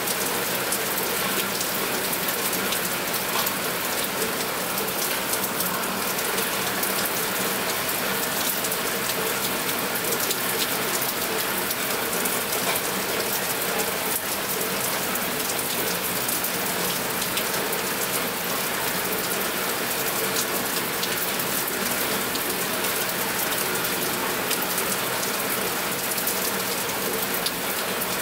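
Steady rain: a dense patter of individual drops ticking on a surface over an even hiss, unchanging throughout.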